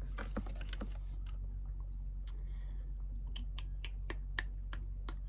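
Handling noise with small clicks: a rustle in the first second, then a quick run of sharp clicks at about four or five a second, over a steady low hum.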